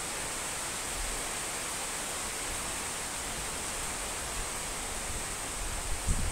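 Steady rain falling, an even hiss. A brief low thump sounds near the end.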